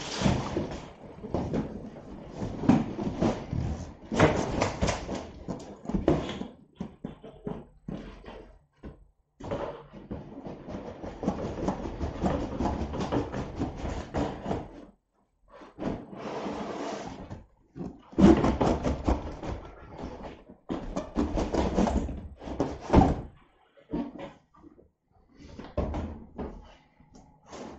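Cardboard boxes scraping and sliding against each other in irregular bursts, with a few knocks as they are set down on a wooden floor: plain white inner boxes being pulled out of a large retail box.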